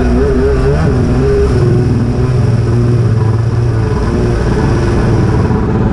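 Jet ski engines running steadily at speed, with wind noise on the microphone.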